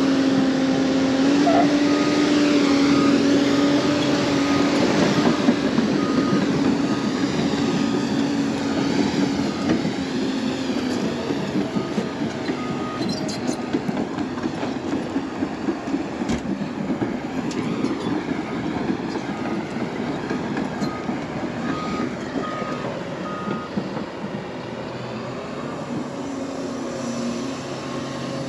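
Hyundai 330 excavator's diesel engine and hydraulics working under load with a larger bucket, with a few sharp clanks. A beeping alarm sounds in short runs, and the machine works loudly at first, then eases off over the second half.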